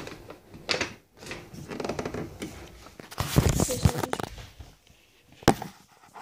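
Handling noise of a phone held close to the microphone: rubbing, rustling and knocks as it is moved about and covered by a hand, loudest about three seconds in, with a sharp click near the end.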